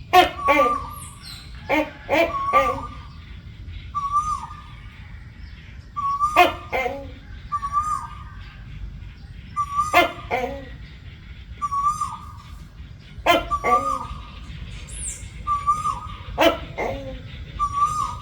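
Gecko calling: loud, barking calls in quick groups of two or three notes, repeating about every three to four seconds.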